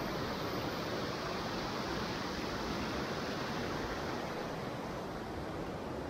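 Steady rush of a waterfall cascading over granite rock ledges.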